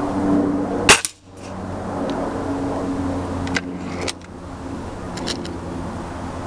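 A .22 Beeman RS2 break-barrel spring-piston air rifle fires once, a sharp crack about a second in, and the pellet knocks the spinning target round. A few lighter clicks follow over a steady low hum.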